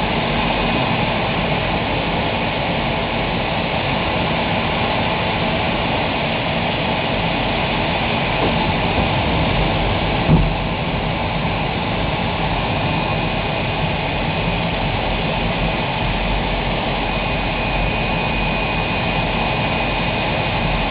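Steady cockpit noise of an L-39 Albatros jet trainer, its turbofan engine running in flight on the landing approach. A short knock sounds about ten seconds in, and a faint high whine comes in past the middle.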